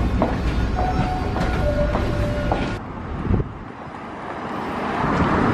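New York subway train rumbling, with two steady tones one after the other, the second lower. About three seconds in it gives way to street traffic noise with wind on the microphone.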